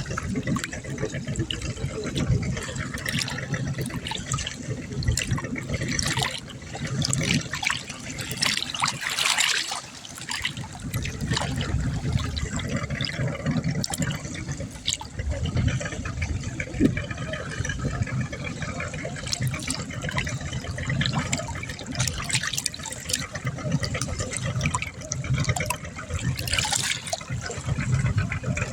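Water splashing and lapping in an uneven, continuous stream of small splashes.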